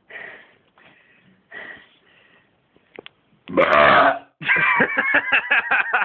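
A man's loud burp lasting under a second, about three and a half seconds in, after he gulped a drink nonstop for 51 seconds. Faint breathing comes before it, and a quick run of short voice sounds follows.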